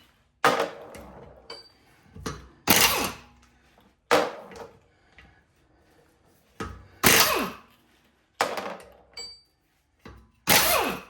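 Impact wrench loosening the wheel bolts in short bursts: about five strong bursts, each dying away within a second, with a few lighter blips between.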